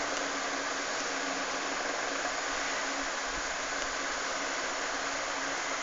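Steady hiss of background noise with a faint, even hum underneath, unchanging throughout.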